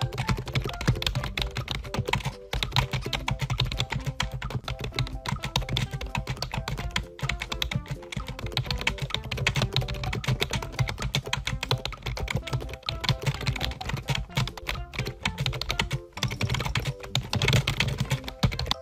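Fast, continuous clicking and tapping, many clicks a second, with faint music beneath.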